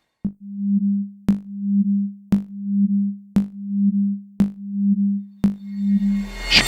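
Synthesized music cue: a low humming tone that swells and fades in pulses, marked by a sharp tick about once a second, like a ticking clock.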